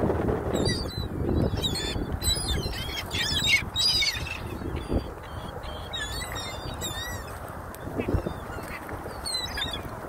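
A feeding flock of gulls calling: many short, high, wavering squeals overlapping one another. They are thickest in the first few seconds and again about six to seven seconds in, over a steady low rush of background noise.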